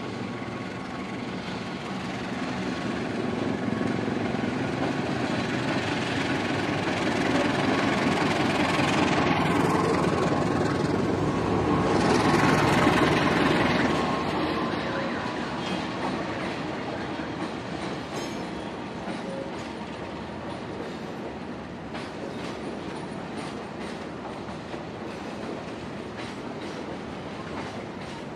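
Diesel-electric locomotive hauling a passenger train out of the station, its engine growing louder until it passes close by about halfway through. Behind it the long rake of coaches rolls past with a steady rumble and clicking wheels.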